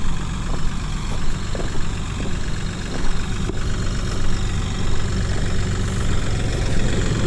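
Kioti NX5510 tractor's diesel engine running steadily as it pulls a grain drill across the field.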